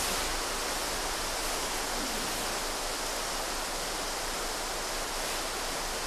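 A steady, even hiss with no distinct events in it.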